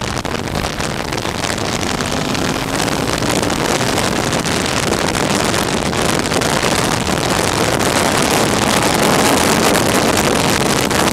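Wind buffeting the microphone of a motorcycle-mounted camera at riding speed, with the motorcycle's engine running underneath. The rush grows gradually louder.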